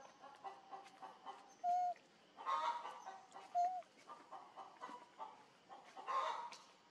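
Chickens clucking in short, repeated pulses, with two loud, brief, even-pitched calls and a couple of louder rough calls in between.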